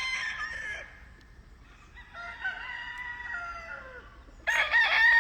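Roosters crowing, one after another: a crow tails off just under a second in, another sounds in the middle, and a louder one starts near the end.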